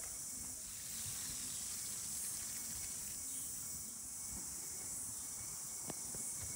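Steady high-pitched insect buzzing that swells slightly now and then, with faint rustling and a couple of soft clicks near the end.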